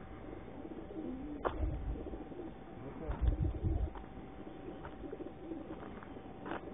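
Racing pigeons cooing in the crates of a pigeon transport lorry, with two low rumbles about a second and a half and three seconds in.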